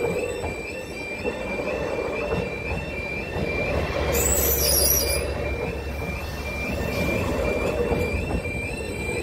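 A level crossing's alternating two-tone alarm sounds steadily, about two cycles a second, as a Greater Anglia passenger train rolls through the crossing. The train's running noise fills the background, with a brief high squeal about four seconds in.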